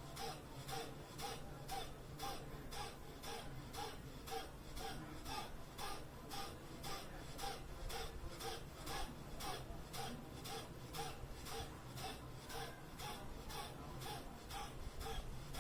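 A person doing rapid, forceful breathing through the nose: short sharp exhalations in an even rhythm, a little over two a second, as in a pranayama breathing exercise.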